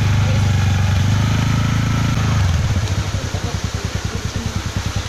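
Small two-wheeler engine running at a steady throttle, then easing off to a fast, pulsing idle about two and a half seconds in.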